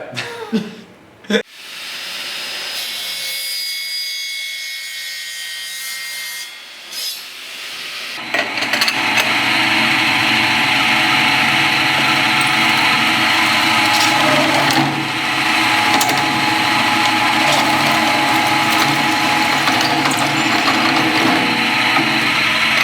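Electric power tool working aluminium. It makes a first steady, whining run of about five seconds, then after a short pause a louder steady run that goes on with a constant high whine.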